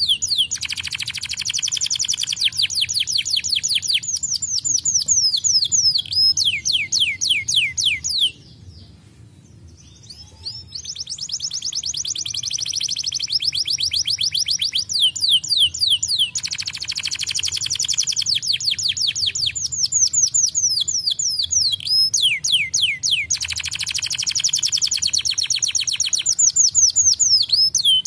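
Domestic canary singing: fast trills of repeated sweeping notes, changing from one trill to the next every few seconds. The song breaks off for about two seconds roughly a third of the way in, then resumes.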